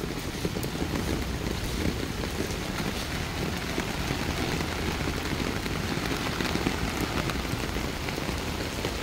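Heavy rain pouring steadily, an even hiss with a low rumble underneath.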